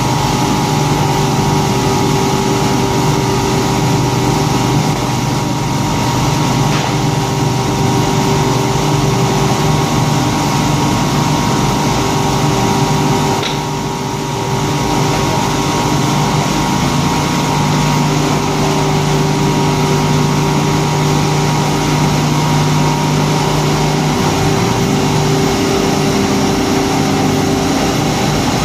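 Eight-head paper core polishing and grinding machine running steadily, its motors and grinding heads giving a continuous hum over a hiss. The level dips briefly about halfway through.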